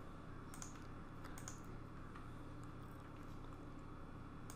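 A few faint, scattered clicks of a computer keyboard and mouse as text is copied and pasted, over a low steady hum.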